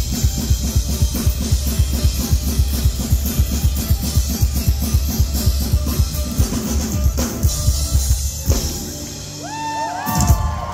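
Live band of drum kit, acoustic guitar and violin playing a fast, steady beat. The beat stops about eight and a half seconds in as the song ends, followed by one last loud hit and a few short, high sliding tones.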